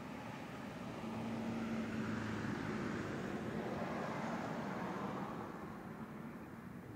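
A motor vehicle passing, its sound swelling about a second in and fading away after about five seconds, with a steady low engine hum during the loudest part.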